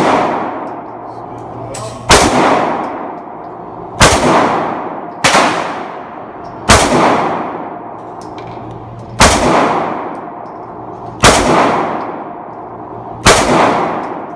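Glock 20C 10mm pistol fired seven times, one shot at a time, spaced about one to two and a half seconds apart. Each shot is followed by a long echoing decay.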